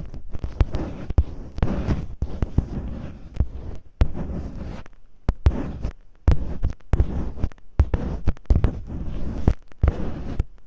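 Masking tape rubbed and scratched against the microphone in ear-cleaning style: irregular crackling scrapes and sharp clicks, with a short pause about halfway through.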